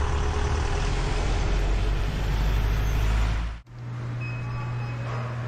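Wind rushing over the microphone with tyre noise from a bicycle riding on a wet road. About three and a half seconds in it cuts off suddenly to a quieter steady low hum.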